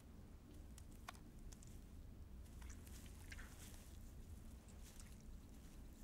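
Faint wet squelches and small clicks of fingers working inside a dead bird's opened body, over a low steady hum.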